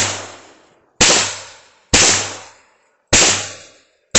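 Taurus 83S .38 Special revolver fired in steady single shots about one a second, each crack followed by a ringing echo that dies away.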